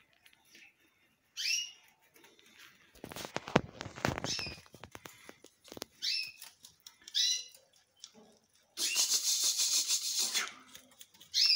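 Belgian canaries calling: short, high chirps that glide downward, several seconds apart, and about nine seconds in a dense, rapid trill of song lasting about a second and a half. A few knocks and rustles come from about three seconds in.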